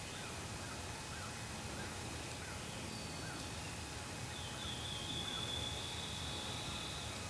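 A faint series of turkey yelps, short arched notes about twice a second, over steady outdoor hiss, fading out about five seconds in. A thin, high, steady whine joins in the second half.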